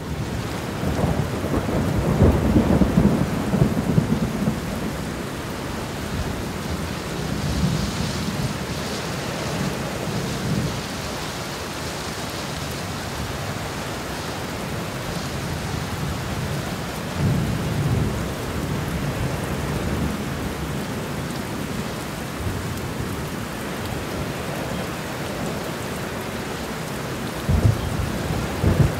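Steady rain with rolls of thunder: a long, loud roll in the first few seconds, and shorter rumbles about 8, 17 and 28 seconds in.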